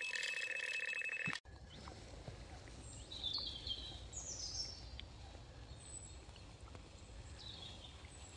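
Electronic carp bite alarm sounding a continuous, rapidly stuttering high tone, a run that signals a fish taking the bait, cut off suddenly just over a second in. Then faint outdoor hiss with a few short, high bird chirps.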